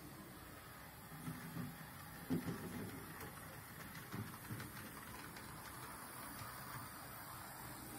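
Small On30 model train running on PECO O-16.5 track: a faint steady whirr of the locomotive's motor and wheels. Irregular light clicks and knocks come as it rolls over rail joints and the points, the loudest a little over two seconds in.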